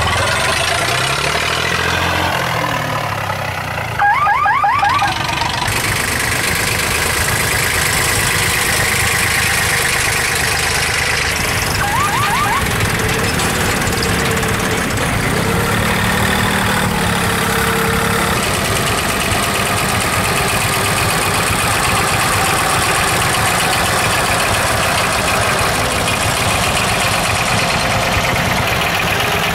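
Diesel engines of vintage tractors running steadily as they drive past one after another, the engine pitch shifting as each one goes by. Short bursts of rising high chirps sound about four seconds in and again about twelve seconds in.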